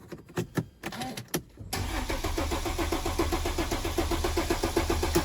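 A few sharp clicks, then about two seconds in the starter motor of a Mercedes W204 C-Class begins cranking the engine with a steady, rhythmic chug. This is the car cranking again after a CAN-bus fault had left it with no crank and no start.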